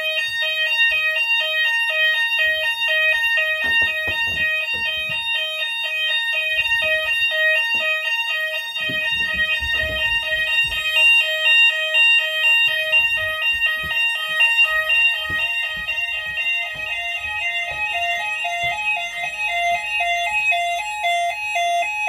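Hochiki addressable fire alarm sounders sounding a loud two-tone alarm, rapidly alternating between two pitches. The alarm cuts off suddenly at the end, as the alarm is silenced at the control panel.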